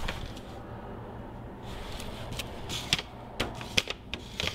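A screwdriver working at a tight brass main jet in a small-engine carburetor: several sharp metal clicks and ticks in the second half as the blade bites and scrapes in the jet's slot. A steady low hum runs underneath.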